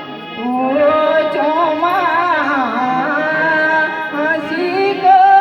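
A man singing a Kumaoni folk song, the melody winding up and down in quick ornaments, then settling onto a long held note near the end.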